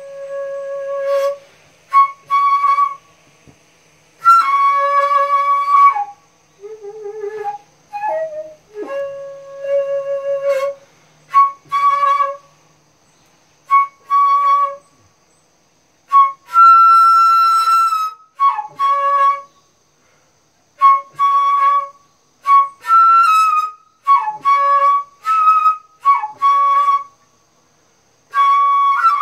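Daegeum, the Korean large transverse bamboo flute, played solo: a slow melody of held notes and short figures separated by brief pauses, with a long, bright high note about halfway through.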